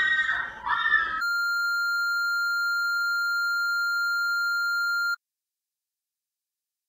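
A high-pitched scream breaks off about a second in. A steady broadcast test tone with colour bars follows, holding one pitch for about four seconds before it cuts off suddenly.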